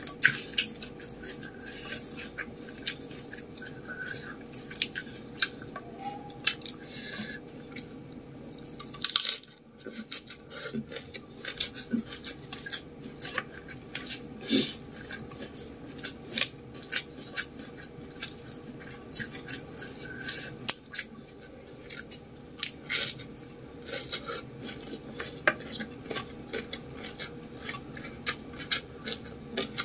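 Close-up eating sounds: chewing mouthfuls of fried rice vermicelli and lettuce, with many irregular clicks and taps as fingers pick food off a printed tray.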